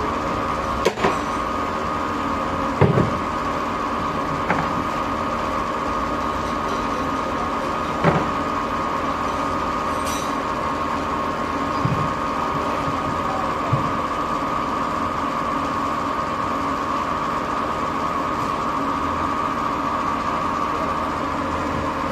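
Lathe machine running with a steady hum and a high whine, with several short sharp knocks and clicks scattered through it.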